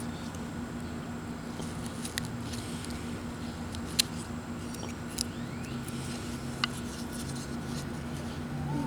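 Knife whittling wood: quiet cuts and shavings, with a few sharp clicks, over a steady low hum.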